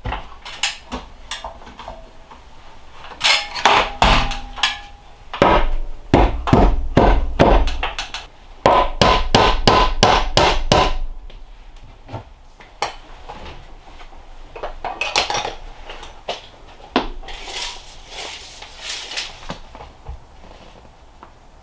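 Hammer driving nails into wood, in several quick runs of sharp blows with pauses between. The densest run comes from about six to eleven seconds in.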